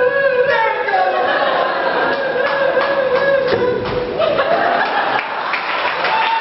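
Voices making a vocal sound effect: long held humming or singing tones that glide slowly in pitch, one sinking over the first four seconds and another rising after that.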